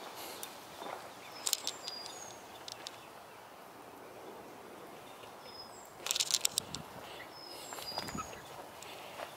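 Outdoor background with short, high-pitched bird chirps recurring every second or so, and two bursts of rapid clicking, about a second and a half in and again about six seconds in.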